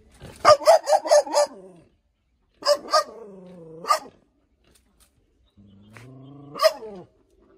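Dog barking: a quick run of about six sharp barks, then two long low growls, each broken by a few sharp barks.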